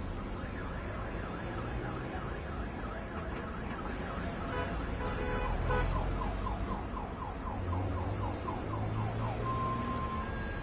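Car alarm sounding over the low rumble of idling traffic. It cycles through its tones: a warbling sweep repeated a few times a second, then a run of quick rising chirps, then a steady held tone near the end.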